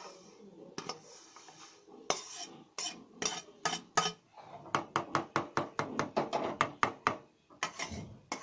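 Spatula knocking and scraping against a metal pan while stirring vermicelli into milk. A few scattered knocks at first, then a quick run of about five strikes a second for a couple of seconds.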